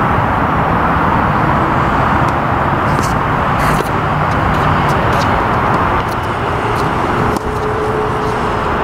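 Steady road traffic noise, with a few faint sharp clicks scattered through it.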